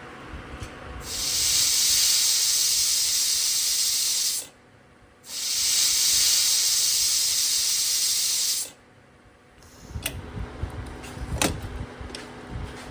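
A loud, steady hiss in two stretches of about three and a half seconds each, with a short break between, each starting and stopping abruptly. A few faint clicks and knocks follow near the end.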